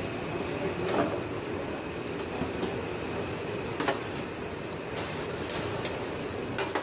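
Chopped onion sizzling in oil in a stainless-steel pot, with a spoon clicking against the metal pot a few times as it is stirred: about a second in, around four seconds in and near the end.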